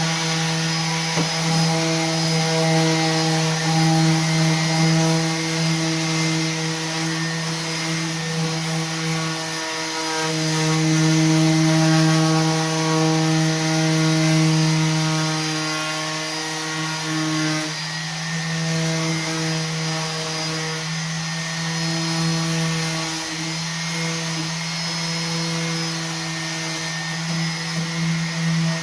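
Electric orbital sander running steadily and sanding wood, a constant motor hum under the hiss of the abrasive, with brief dips in the hum a few times.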